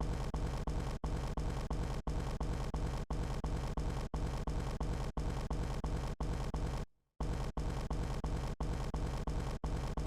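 The Vine boom meme sound effect repeated so fast that the booms merge into one continuous deep rumble. Brief dropouts every half second or so break it, where the edited clips join, and it cuts out completely for a moment about seven seconds in.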